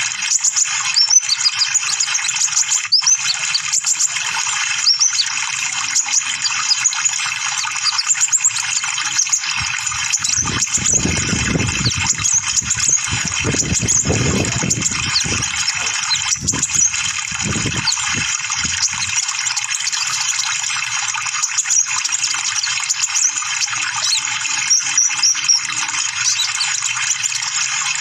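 Van Hasselt's sunbird (kolibri ninja) twittering: a dense run of quick, high-pitched chirps over a steady hiss. A low rumble comes and goes between about ten and nineteen seconds in.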